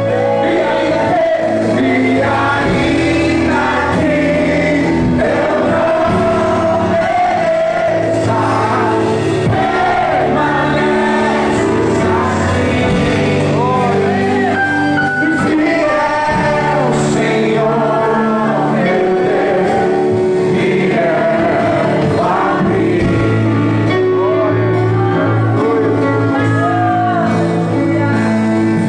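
A live gospel worship song: a man sings into a microphone over acoustic guitar and keyboard, heard through the PA speakers.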